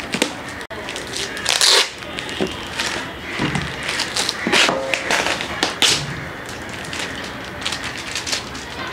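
Clear plastic packing tape being cut and torn off a cardboard box, with crinkling tape and cardboard scraping and knocking as the box is handled. Several louder rips stand out, about two seconds in, then near the middle.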